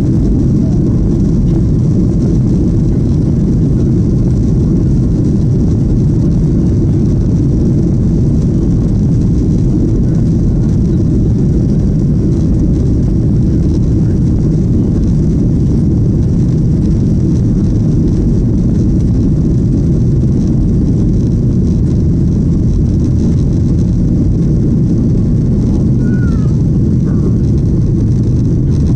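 Cabin noise of a Boeing 737-800 on its takeoff roll: the CFM56-7B engines at takeoff thrust and the rumble of the wheels on the runway, a loud, steady roar heard from inside the cabin.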